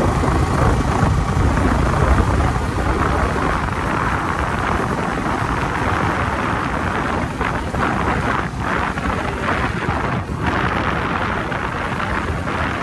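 Wind rushing over the microphone of a phone carried on a moving motorcycle, with the motorcycle's engine running underneath.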